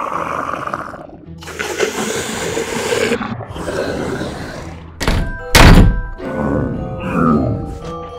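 A heavy thud sound effect a little past halfway, the loudest sound, over background music with sustained notes. Before it come two stretches of rushing noise.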